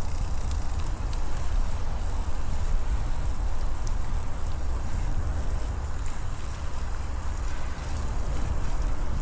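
Wind buffeting the microphone of a moving bicycle, a steady low rumble over the crackle of tyres rolling on a forest path, with faint scattered ticks.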